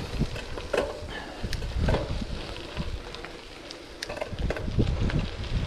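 Wind rumbling unevenly on the microphone of a gravel bike riding down a gravel road, with the tyres crunching over loose stones and scattered sharp clicks and rattles from the bike.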